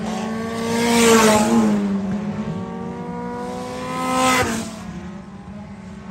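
Dirt-track stock car engines passing close by twice over a steady engine drone. Each pass swells to a peak and then drops in pitch as the car goes by, the second drop sharper.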